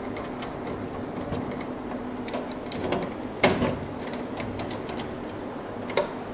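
Scattered light clicks and taps of plastic and metal parts as the developer unit's wire connector is plugged in and its retaining screw is worked, inside a Sharp BP-20M22 copier. The loudest click comes about three and a half seconds in and another near six seconds, over a steady low hum.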